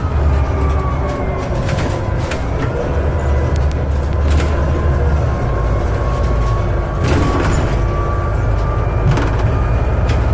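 Scania Citywide CN280UB city bus running on its 280 hp compressed-natural-gas engine, heard from inside near the front: a steady low engine rumble with a thin whine over it. A few short knocks and rattles from the bus body come through, about three times.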